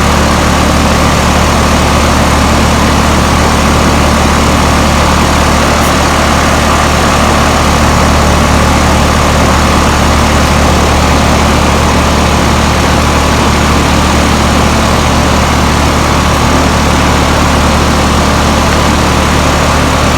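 2.5-ton Carrier outdoor air-conditioning condensing unit running, its compressor and condenser fan making a loud, steady hum.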